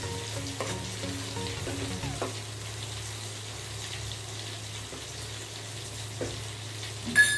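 Chicken coated in ground pepper masala frying in a kadai over medium heat, sizzling steadily while it is stirred, with a sharp clink near the end.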